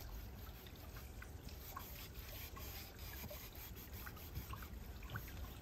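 Faint rubbing of fingertips over a sheet of paper laid on a painted styrofoam plate, with small scratchy ticks. This is the paper being hand-pressed to pull a foam-plate print.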